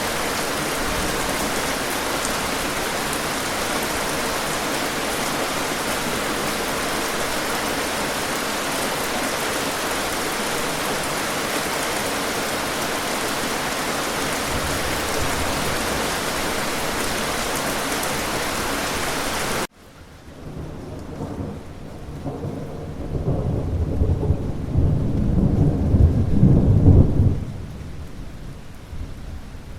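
Steady rain hiss that cuts off abruptly about two-thirds of the way through. After the cut, a quieter stretch in which a low rolling rumble of thunder builds, peaks and fades away.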